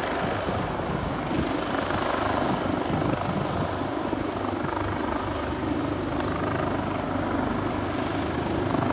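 Leonardo AW139 twin-engine helicopter hovering, its turbine and rotor running steadily with a fast, even rotor beat.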